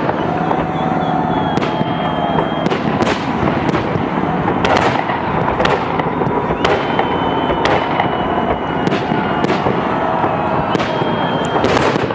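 Fireworks salute going off: a string of sharp bangs, irregularly about every half second to a second, over a steady dense rumble of further bursts.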